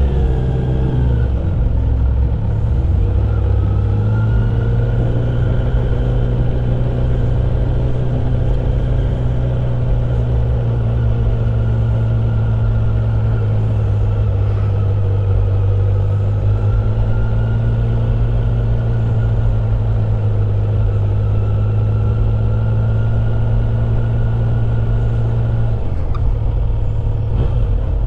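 Kawasaki Z900 SE's inline-four engine running at a low, steady speed while the motorcycle is ridden. The pitch shifts in the first few seconds, holds steady, then drops near the end.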